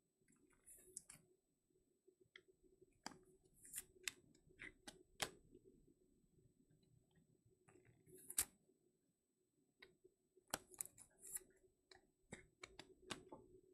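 Faint handling of trading cards and their plastic packaging: scattered sharp clicks and short swishes at an irregular pace, the loudest click about eight seconds in.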